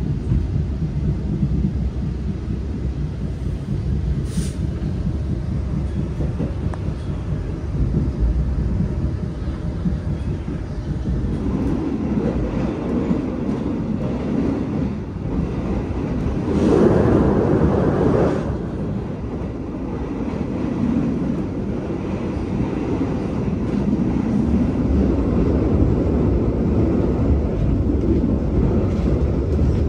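Passenger train just setting off from a station, its wheels rumbling steadily on the rails. There is a brief click a few seconds in, and the rumble grows louder for about two seconds near the middle.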